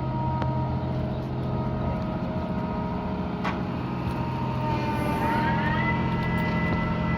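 Crane engine running steadily under load, with a whine that rises in pitch about five seconds in and then holds, as the crane hoists the rooftop HVAC unit. There is a single sharp knock about three and a half seconds in.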